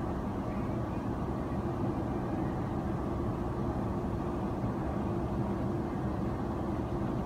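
Steady roar of an airliner's cabin in flight: engine and airflow noise, with a steady hum running under it.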